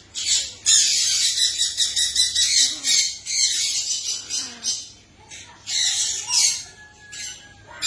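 Green-winged macaws giving repeated harsh, raspy squawks in several loud bouts, with a short pause about five seconds in.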